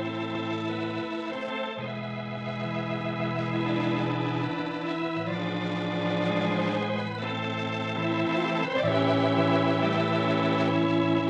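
Organ playing held chords of a closing theme, swelling louder toward the end.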